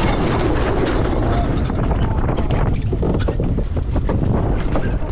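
Wind buffeting the microphone aboard a racing sailboat under way, a loud steady rumble with irregular gusty bursts, with the rush of water around the boat.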